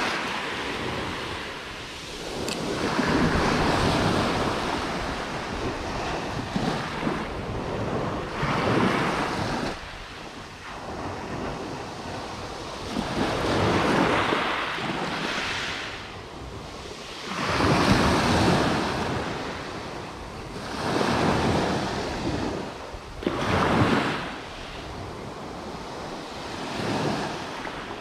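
Small sea waves washing onto the shore, the surf swelling and fading about seven times, every three to five seconds, with wind buffeting the microphone.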